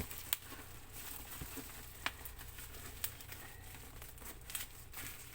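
Parcel packaging being handled and pulled open by hand: crinkling and rustling, with a few sharp clicks or snaps, including one near the start and two around the middle.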